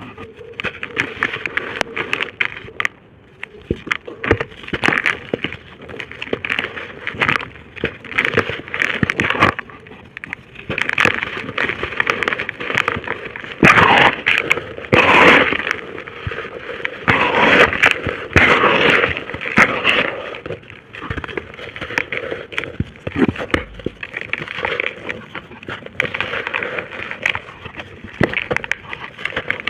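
Dry pressed shapes of red brick dust and dirt being crushed and crumbled, a continuous irregular crunching and crackling with the loudest crunches in the middle.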